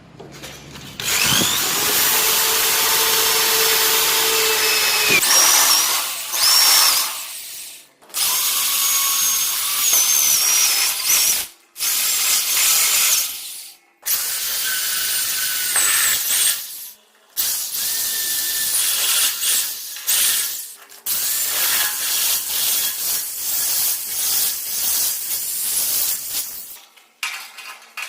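Electric drill boring holes in a steel door. It runs in about seven bursts of one to four seconds with short stops between, its whine shifting in pitch as the bit cuts.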